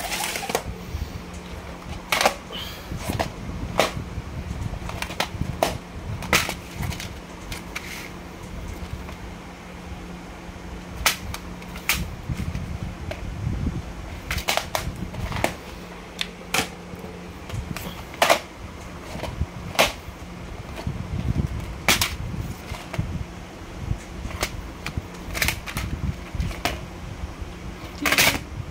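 Plastic DVD cases being handled, opened and shut, giving sharp clicks and snaps at irregular intervals, with a low steady hum underneath.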